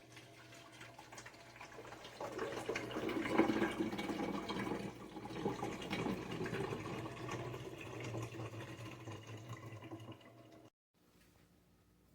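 Water rushing and splashing, building up over the first two seconds and then running steadily, with a low steady hum underneath; it cuts off abruptly near the end.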